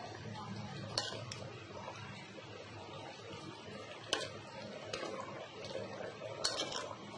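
Metal slotted spoon stirring minced meat and onions in an aluminium pot, knocking against the pot with a few sharp clinks (about a second in, around four seconds, and twice near the end), over steady low background noise.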